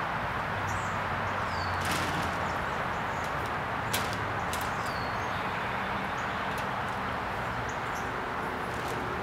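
Outdoor ambience: a steady rushing background with a few short, high falling bird chirps. A few sharp clicks or taps come through, the clearest about four seconds in.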